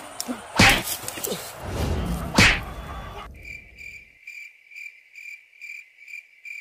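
Two loud, sudden swishing hits about a second and a half apart. Then a cricket-chirping sound effect over dead silence: an even high chirp about two and a half times a second, cut in like a comic 'crickets' pause.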